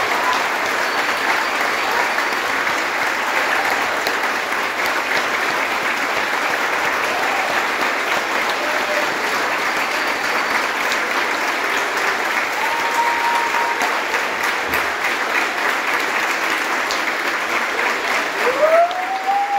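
Audience applauding steadily, with a few voices calling out over it, one near the end.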